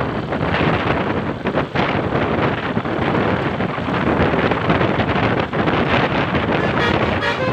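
Heavy wind buffeting the microphone over the rushing noise of a moving vehicle on the road.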